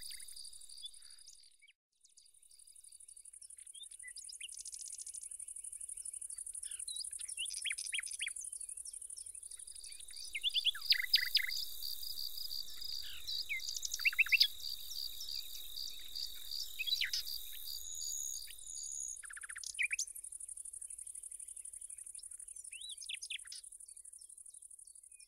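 Outdoor nature ambience: a steady, high-pitched insect drone with birds chirping over it. A second, pulsing insect-like trill joins about ten seconds in and stops near twenty seconds. The sound cuts out briefly about two seconds in.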